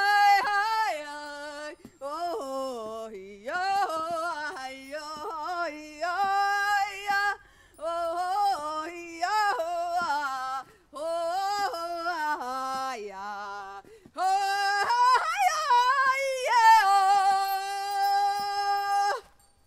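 A single unaccompanied voice singing in short phrases with sudden leaps and bends in pitch. It ends on one long held note that stops abruptly near the end.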